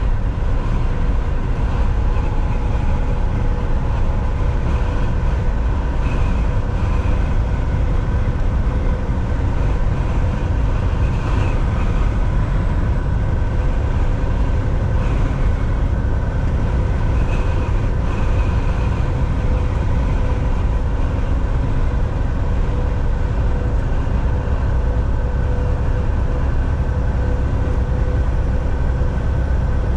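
Semi-truck driving on the highway: a steady low rumble of engine and road noise with a faint even hum above it, unchanging throughout.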